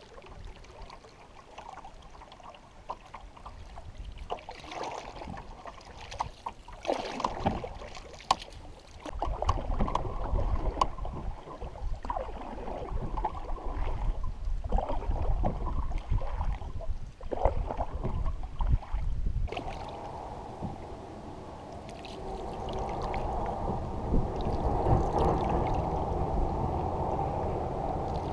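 Water splashing and gurgling around a canoe under paddle, in irregular strokes over a low rumble. About two-thirds of the way through it changes abruptly to a steadier rush of water along the hull.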